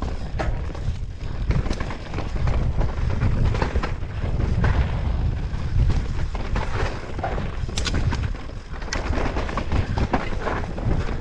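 Mountain bike descending a dirt singletrack: tyres running over dirt and roots, with frequent sharp clicks and rattles from the bike over bumps, under a constant low rumble of wind buffeting the camera microphone.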